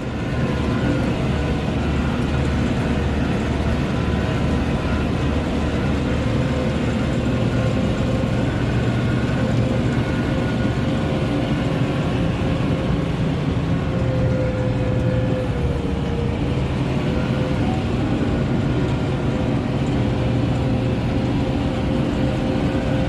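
Farm tractor engine running steadily under load, with a steady whine over the engine noise that dips briefly about two-thirds of the way through.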